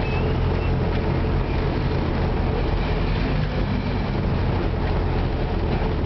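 A vehicle's engine and road noise heard from inside its cab while driving: a steady low engine hum under an even rumble of road noise.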